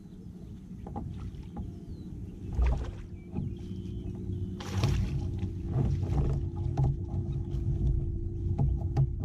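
A hooked bass splashing at the surface beside a kayak as it is fought and scooped into a landing net, with two louder splashes about two and a half and five seconds in. A steady low hum and rumble runs underneath, with small knocks against the kayak.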